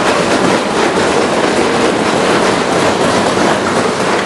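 Members of the house thumping their desks in applause, a dense steady clatter that rises right after the punchline and holds through the pause.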